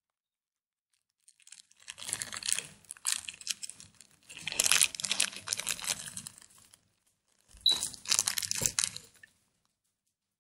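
Crinkling, rustling handling noise of a small cardboard ring box as a pair of rings is worked out of it, in two stretches with a short pause about seven seconds in.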